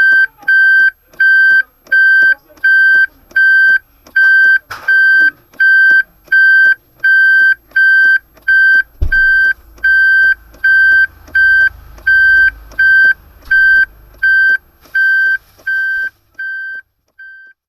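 Reverse-gear warning beeper of a Toyota Avanza-type car, giving a steady string of short, high, evenly spaced beeps, about three a second, that fade away at the end. A sharp knock comes about four and a half seconds in, and a dull thump about nine seconds in.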